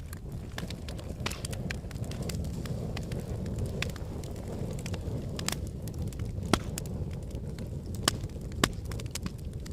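Fire burning in a fireplace and crackling: a steady low rush of flame under frequent sharp pops. The loudest pop comes about six and a half seconds in, and two more strong ones come near the end.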